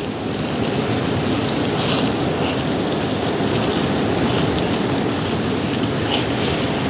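Aluminium foil crinkling in brief scratches, about two seconds in and again near the end, as it is folded and crimped shut into a cooking packet. Under it runs a steady background noise.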